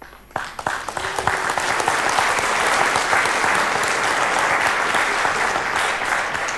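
Audience applauding. The clapping breaks out just after the start, builds within about a second, holds steady, and thins toward the end.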